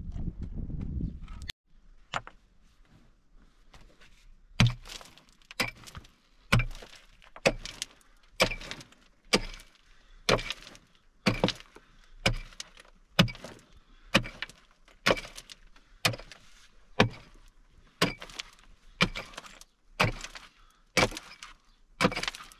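Steady strokes of a hand digging tool striking hard, stony ground, about one a second, each a sharp clink.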